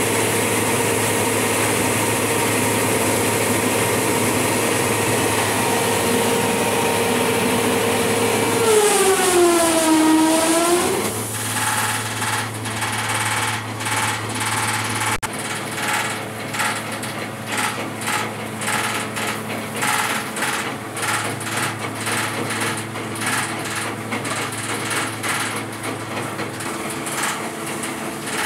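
A belt-driven mini rice sheller and its 20 hp electric motor running with a steady drone. About nine seconds in, the pitch sags and climbs back up, louder for a couple of seconds. Then the running turns into a quick, uneven clatter.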